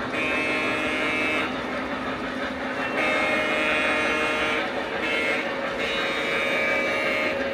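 Model diesel locomotive's onboard sound system blowing its horn in three long blasts, over the steady rumble of the train running on the track.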